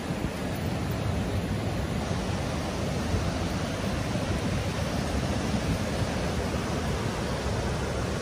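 River water rushing steadily over granite cascades, a continuous even rush with no breaks.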